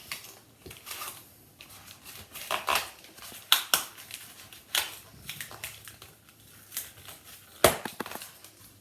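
Packaging being handled during an unboxing: irregular crinkling and rustling, with one sharp knock near the end as something is set down or bumped.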